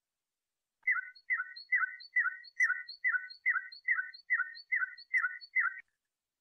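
Moroccan flauta canary singing a tour: a run of about a dozen identical short falling notes, roughly two and a half a second. It starts about a second in and stops near the end.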